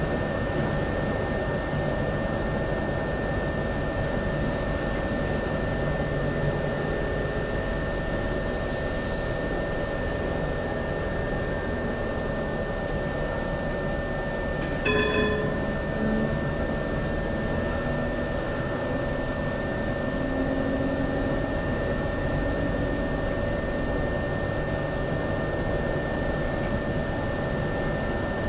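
Cabin noise inside an HTM GTL8 articulated tram: a steady hum and whir of its running equipment with a constant high whine. About halfway through, a short ringing tone sounds once.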